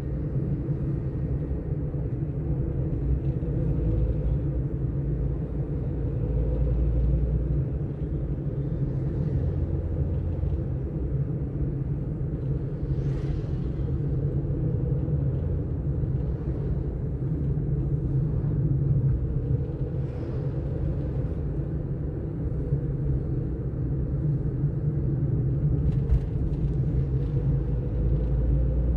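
Engine and road rumble heard from inside a moving car's cabin: a steady low drone with the engine's pitch drifting slightly up and down.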